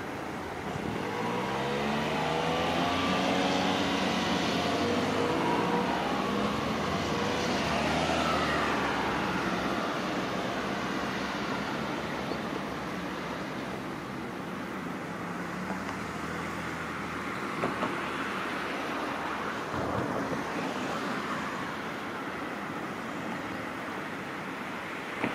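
A motor vehicle driving past over the steady rush of a river. Its engine note sweeps in pitch as it goes by during the first several seconds, and a fainter pass follows later.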